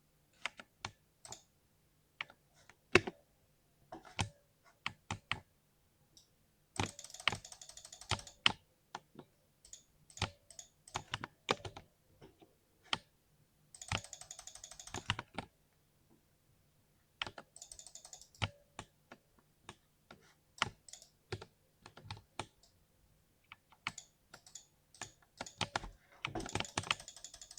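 Typing on a mechanical keyboard: scattered single keystrokes broken by four quick runs of fast, dense typing.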